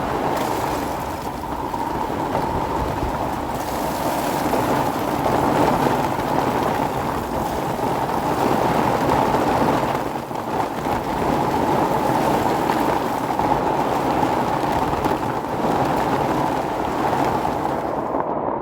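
Steady rush of a flooding mountain river's fast water.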